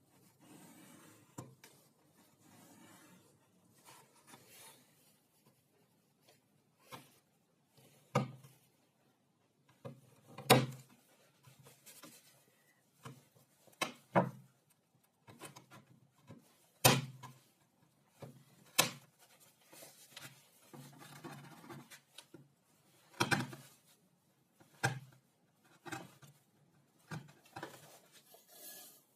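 Workshop handling sounds: wood pieces and tools set down and moved on a bench, giving scattered sharp knocks and clicks with soft rubbing in between. The two loudest knocks come about ten and seventeen seconds in.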